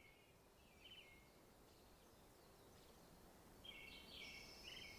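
Faint bird calls: short chirping phrases, one about a second in and a run of them from about three and a half seconds in, over a faint steady hiss.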